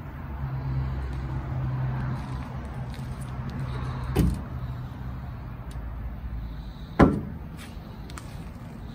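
Deck hatch lid on a 2020 Alweld 1648 VV Marsh aluminum jon boat being handled, giving a knock about four seconds in and a louder, sharper knock about seven seconds in. A steady low hum runs underneath and fades after about five seconds.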